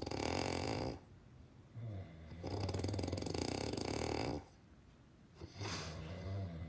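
Loud rattling snores, one long snore ending about a second in and another of about two seconds in the middle, with softer breaths in the gaps.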